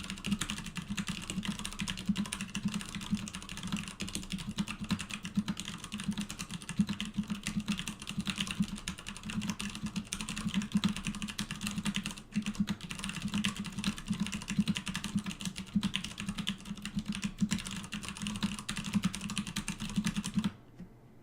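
Cherry MX Clear switches on a KUL ES-87 mechanical keyboard being typed on fast and continuously: a dense stream of key clacks that stops abruptly about twenty seconds in.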